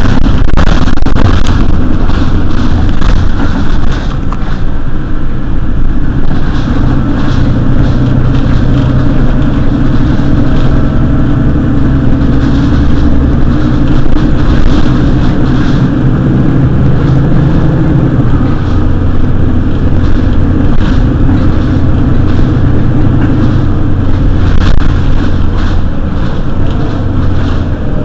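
Mercedes-Benz Citaro city bus engine running, its pitch shifting a few times, with a faint rising whine and frequent rattling.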